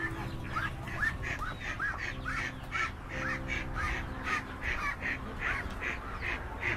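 Ducks quacking in a rapid, continuous series of short calls, about three a second.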